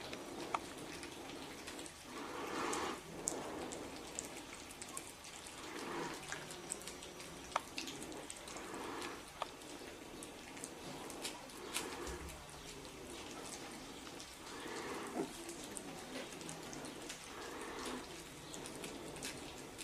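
Puli puppies eating from a shallow bowl: irregular wet smacking, chewing and lapping clicks.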